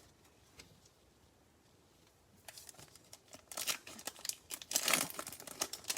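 A trading-card pack wrapper being torn open and crinkled by hand. It starts about two and a half seconds in after a quiet stretch, as a dense crackling that grows louder.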